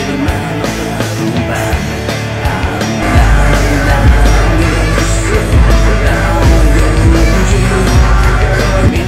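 Background music track: dense, loud music that grows fuller and louder about three seconds in, when a heavy deep bass layer enters.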